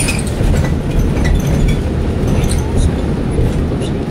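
Steady low rumble of a moving vehicle heard from inside the cabin, road and engine noise on wet pavement, with scattered light rattles and clicks.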